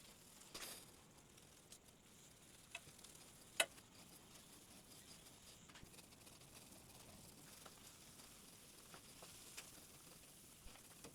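Near silence with a few faint scattered clicks and one sharper click about three and a half seconds in.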